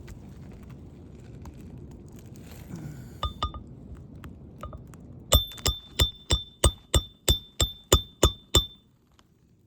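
A hand hammer driving a roofing nail into a replacement shingle. Two light taps come first, then about eleven quick, even blows, roughly three a second, each with a metallic ring.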